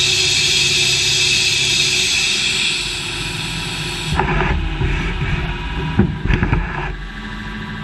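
Machinery in an automated machining cell running with a steady hiss that drops away about three seconds in, then a run of irregular knocks and clanks from about four seconds in, the loudest about six seconds in.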